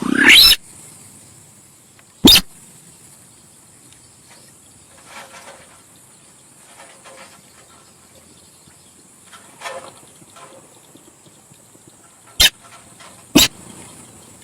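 Recorded lure calls of the sintar sawah, a paddy-field bird: a loud sweeping call at the start, then short, sharp, harsh notes about two seconds in and twice near the end, with fainter calls in between. A steady high hiss runs underneath.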